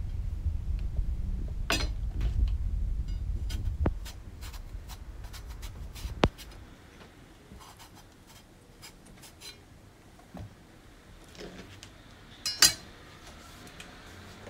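Kitchen knife peeling and cutting eggplant on a plastic cutting board: scattered taps and scrapes of the blade, over a low rumble for the first four seconds. A sharp knock about six seconds in, and a louder one near the end.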